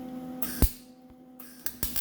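Wire-feed (MIG) welder laying short tack welds: a short arc crackle about half a second in ending in a sharp crack, then more brief crackling bursts and pops in the second half, over a steady electrical hum.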